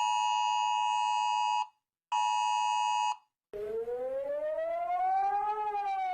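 Two bursts of a steady two-tone alert signal in the style of the Emergency Alert System attention tone. The first lasts about a second and a half and the second about a second, with a short gap between them. A siren tone then starts, rises slowly in pitch for about two seconds and falls again.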